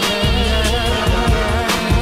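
Background pop music with a steady drum beat over a held bass and a wavering melodic line.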